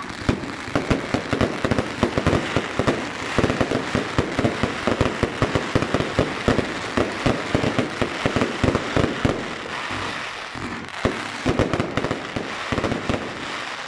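Consumer firework batteries, Riakeo Glück und Seligkeit 1 and Tsunami 1 with Zena crackling shape boxes, firing a finale barrage: a dense, rapid stream of bangs with crackling between them. The barrage eases slightly about ten seconds in, then comes back in a last flurry.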